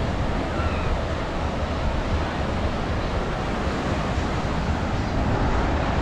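Surf washing steadily onto a beach, with wind rumbling on the microphone.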